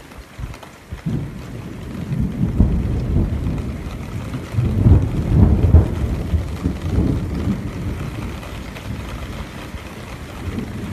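Thunder rumbling over steady rain: a low rumble sets in about a second in, is loudest around the middle, then slowly dies away.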